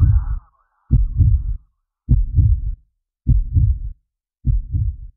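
Heartbeat sound effect: a low double thump about every 1.2 s, five beats, growing fainter. The tail of the preceding music fades out in the first second.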